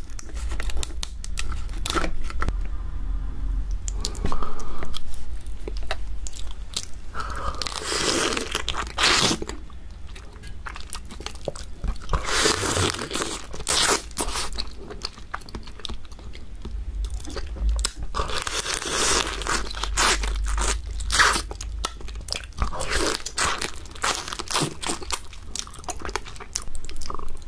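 Close-miked eating of soy-sauce-marinated raw swimming crab: biting and crunching through the shell and legs, with chewing, in several loud bouts a few seconds long.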